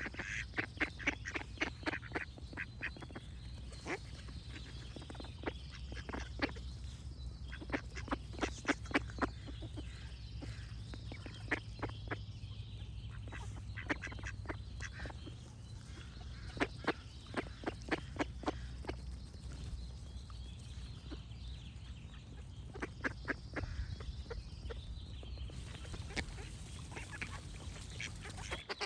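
Ducks quacking in quick runs of repeated quacks every few seconds, with birds singing faintly behind them and a steady low hum underneath.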